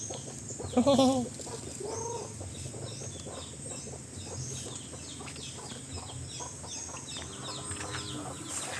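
Chickens clucking, with one louder call about a second in. Small birds chirp high in the background throughout.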